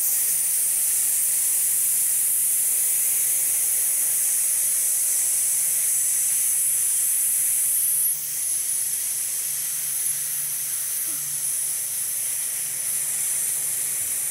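A woman slowly letting out her breath as one long, even hissed "sss" on the letter S, after a quick inhale into the diaphragm: a vocal breath-support exercise in which the hiss is kept steady for a fourteen-count exhale. The hiss gets a little quieter about eight seconds in.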